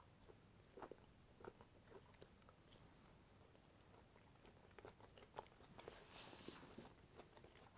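Faint chewing and small mouth clicks from a person eating a piece of soft boiled pork brisket, over near silence.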